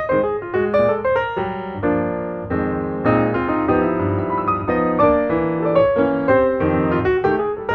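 Background piano music: a light melody over chords, played at a steady level.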